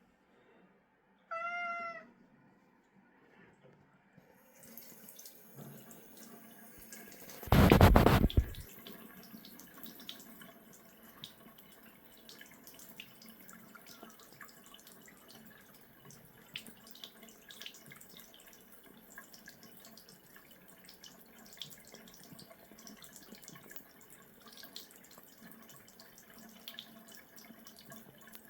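A cat meows once, briefly, near the start. Then a tap runs as a thin trickle with small splashes and ticks while the cat drinks, with one brief, loud rush of water about a second long around the eight-second mark.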